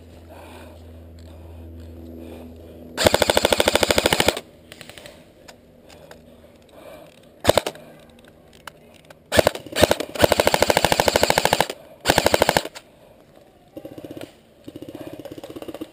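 Airsoft rifle firing full-auto bursts of rapid shots: a burst of over a second, a few single shots, a longer burst of about two seconds and a short one, then two quieter bursts near the end.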